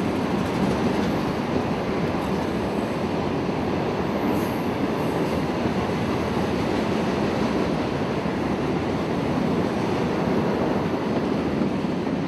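A CSX freight train and Amtrak's Silver Meteor passenger train passing side by side, a steady loud noise of wheels running on rail, with a faint high squeal about four seconds in.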